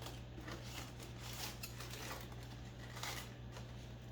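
Aluminium foil crinkling and light knocks as a foil-wrapped tray of ribs is handled and put back into the oven, over a steady low hum.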